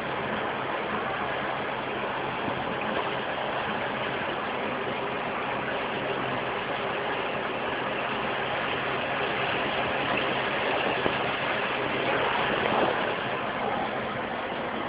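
A steady machine hum under an even rushing noise, running without a break.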